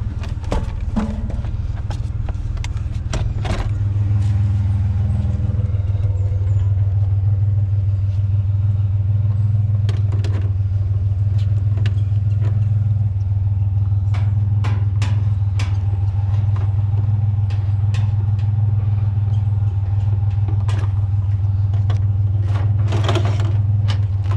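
Vehicle engine running with a steady low hum, with scattered knocks and clatter of objects being handled over it.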